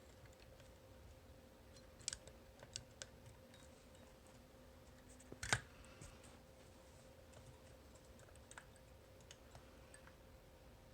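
Faint, scattered metallic clicks and ticks of a homemade pick turning the rotating discs inside an Abloy Classic disc-detainer cam lock, with one sharper click about halfway through.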